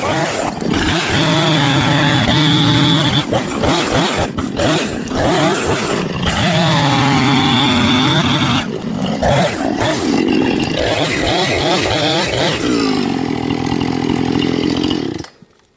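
Chainsaw engine running at full throttle and cutting, its pitch sagging under load and climbing again several times, then cutting off suddenly near the end.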